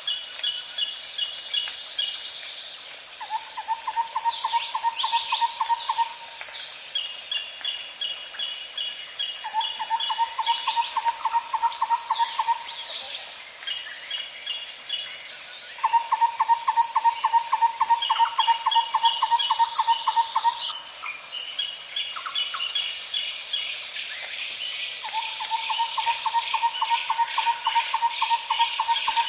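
A chorus of birds and insects: a steady high insect buzz under it, a low pulsed trill repeating every few seconds, and quick chirping series and short falling calls from birds.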